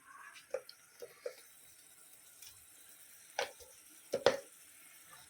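A kitchen spoon clinking and tapping a handful of times at irregular intervals as green chilli pickle is scooped into the cooking pot, the louder taps in the second half.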